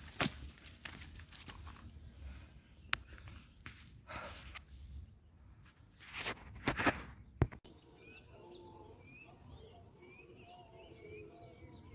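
Footsteps and rustling through undergrowth, with a few sharp clicks. About seven and a half seconds in, an abrupt cut to a steady, high insect drone with short bird chirps repeating over it.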